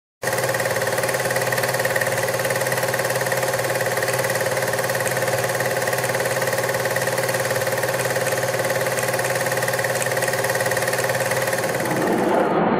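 Cine film projector running: a steady mechanical hum with a fine, rapid, even clatter from its film mechanism. Near the end it fades into a broader rushing noise.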